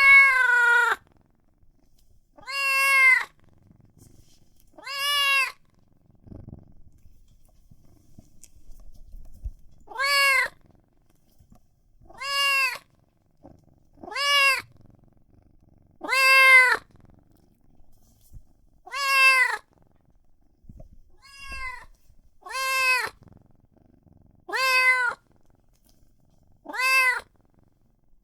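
Newborn kitten meowing in repeated high-pitched cries, each under a second and arching up then down in pitch, about a dozen of them roughly two seconds apart with a longer pause near the first third. These are typical of a young kitten's distress call to its mother.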